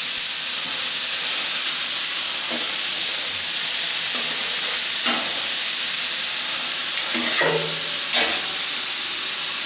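Chopped onions sizzling in oil on a hot plancha griddle, a steady frying hiss.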